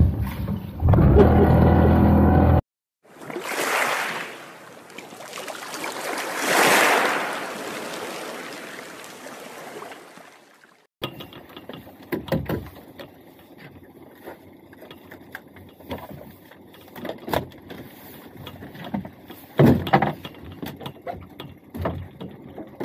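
A loud stretch cuts off sharply. A rush of noise follows, swelling twice and then fading. From about eleven seconds in come the sounds aboard a small fishing boat on the water: low wind and water noise with scattered knocks and thumps, the loudest near the end.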